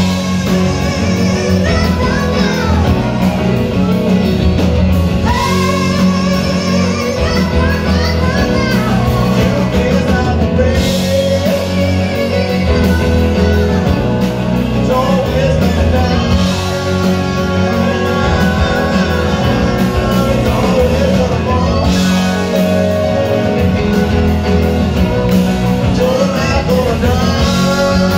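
Live rock band playing a song with singing: electric guitars, keyboards and drums over a steady beat, with the sung lines weaving above.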